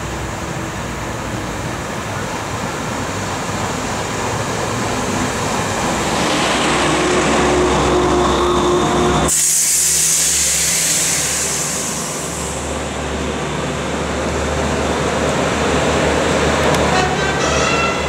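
AEG/LEW diesel multiple unit's diesel engines running under power as the railcar approaches, getting louder. About nine seconds in, the sound cuts abruptly to a train rolling past close by at a station platform, with a strong hiss for a few seconds, then train running noise building again.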